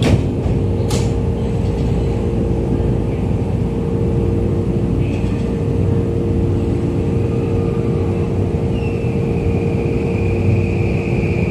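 Tokyu 2020 series subway train heard from inside the car: the steady rumble and hum of the train running. There are two sharp clicks near the start, and a high whine comes in about nine seconds in.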